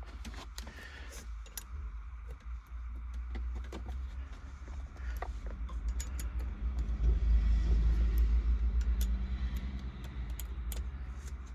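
A motor vehicle's low rumble, building to its loudest about seven to nine seconds in and then easing off, with scattered small metallic clicks and jingles from hand tools being handled.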